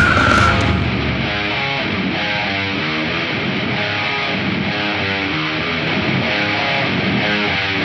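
Heavily distorted electric guitar playing a repeating brutal death metal riff on its own. The full band with drums cuts out a little under a second in, leaving the guitar alone.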